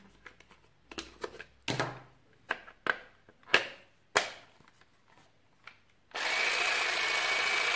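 Hard plastic clicks and knocks as the hedge-cutting blade is fitted and locked onto a Parkside PGSA 4 A1 cordless grass and hedge trimmer. About six seconds in the trimmer is switched on, and its small motor and blade run with a steady, even whir.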